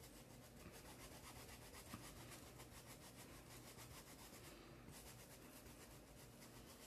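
Faint, quick, even rubbing strokes of a stencil brush scrubbing undiluted white fabric paint through a stencil onto coarse black sacking fabric, with a short break near the middle.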